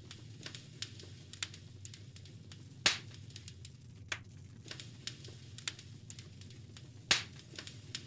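Log fire crackling: irregular small pops and snaps over a low steady rumble, with two louder pops about three and seven seconds in.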